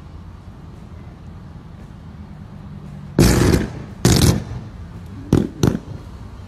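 Four loud explosive bursts from an electrical fire at the base of a utility pole, over a low steady rumble: two half-second blasts about three and four seconds in, then two short sharp pops close together.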